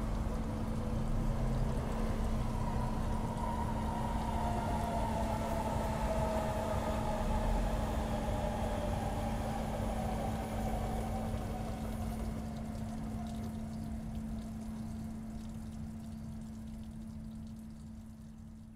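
A closing soundtrack drone: a steady low hum over a rumbling noise bed, with faint tones that slowly fall in pitch over several seconds. It fades out near the end.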